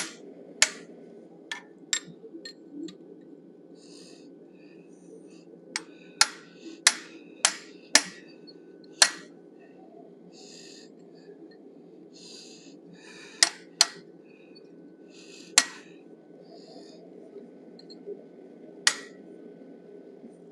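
Hammer striking a bob punch driven into hot steel to open eye sockets: about a dozen sharp metallic blows, irregularly spaced, some in quick runs of two or three, over a steady low hum.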